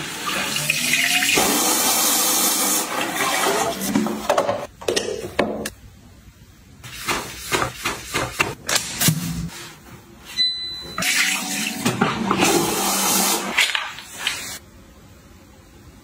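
A Toshiba smart toilet with a built-in booster pump flushing with a strong rush of water, then a brush scrubbing the bowl in short strokes. About ten seconds in there is a short high beep, followed by a second flush.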